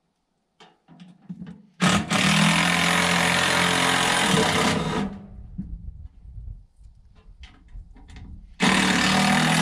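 A power tool running in two bursts, about three seconds and then about two seconds, each starting and stopping abruptly: a loud steady whirring noise over a low motor hum, with a few light knocks between the bursts.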